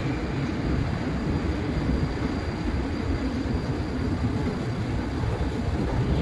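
Steady low mechanical rumble of a metro escalator and station machinery, heard while riding the running escalator down to its bottom landing.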